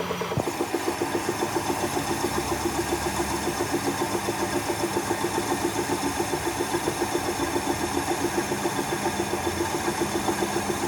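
Workshop machinery running steadily with a regular rapid pulse, about seven beats a second, and a single sharp click about half a second in.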